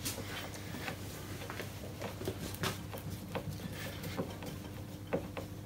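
A screw being driven by hand with a screwdriver through a wooden strip into an MDF board: faint, irregular clicks and creaks as the screw turns.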